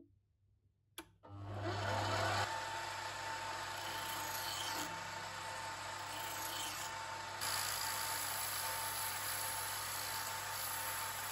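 A click about a second in, then a small bench lathe's motor running with a steady hum and whine as it spins a steel pipe-vice screw, with the rasp of a hand file and then the hiss of abrasive cloth held against the turning metal; the sound turns brighter about seven seconds in.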